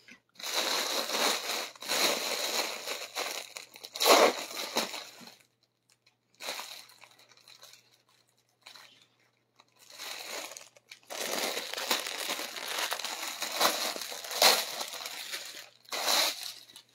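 Plastic bags and fabric crinkling and rustling as they are handled, in three stretches: a long one at the start, a short one in the middle and another long one near the end.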